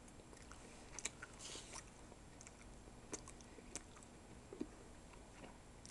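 Near silence: faint room tone with a few scattered soft clicks and a brief faint hiss.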